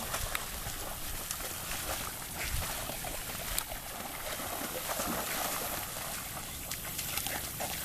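Dogs swimming, with water splashing and sloshing around them in a steady outdoor wash of sound.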